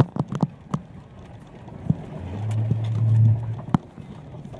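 A Jeep heard from inside the cab as it drives a rutted, muddy dirt track: sharp knocks and clunks as it jolts over the ruts, several in quick succession at first and then single ones, over a low rumble. Past the middle the engine's low drone swells for about a second and a half, then drops back.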